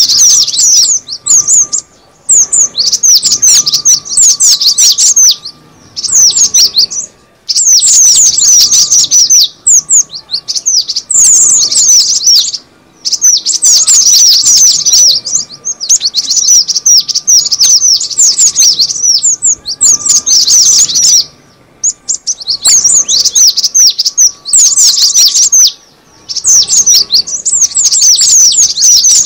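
Cinereous tit (gelatik batu) calls played as a bird-lure recording, meant to draw in wild birds of the same kind. Quick runs of high, sharp chirps last a few seconds each and break off in short pauses every few seconds, over a faint steady tone.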